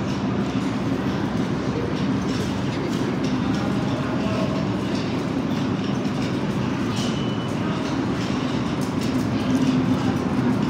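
New York City subway train running, a steady rumble with a low hum and a few faint clicks, getting a little louder near the end.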